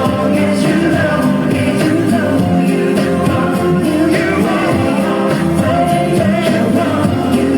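Dance song with a singing voice over a steady beat, playing loudly and evenly throughout.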